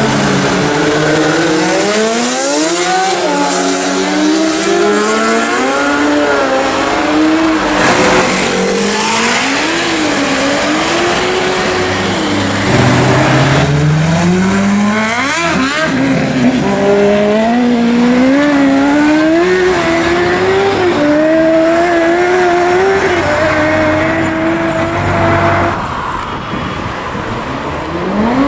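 Sportbike engines revving hard through open exhausts, their pitch climbing, dropping and climbing again over and over as the throttle is worked and gears change.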